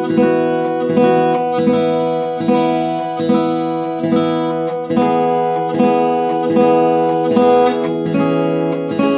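Acoustic guitar strumming chords in a steady rhythm, about one strum every 0.8 seconds, with a change of chord near the end.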